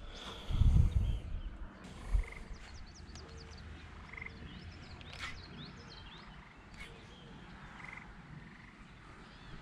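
Frogs calling from a pond, short croaks repeated every few seconds, with small birds chirping high above them. A brief low rumble about half a second in is the loudest sound.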